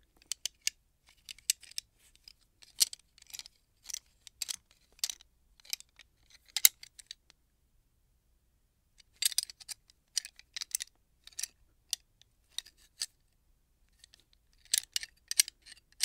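Metal gun parts being handled: clusters of sharp, light metallic clicks and clacks. There is a pause of about two seconds near the middle and a shorter one before a final flurry near the end.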